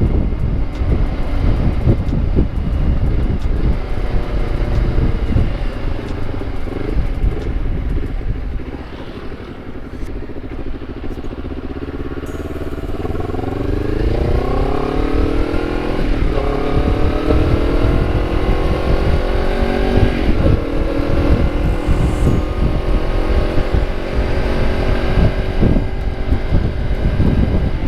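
Honda CBR250RR with a KEA Speed aftermarket exhaust running under way, with wind buffeting the microphone. The engine eases off briefly, then about halfway through its note climbs steadily as the bike accelerates, before settling into a steady cruise.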